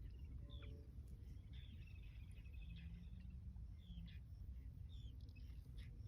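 Faint, short bird chirps, each falling in pitch, scattered about once a second over a low steady rumble.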